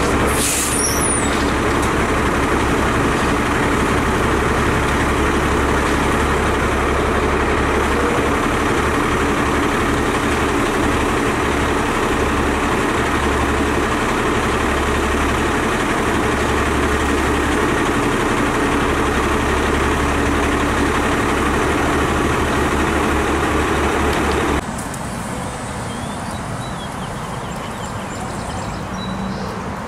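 TTC streetcars running on the loop track: a steady running noise, with a brief high squeal about half a second in while the articulated car rounds the curve. The noise drops suddenly to a quieter level near the end.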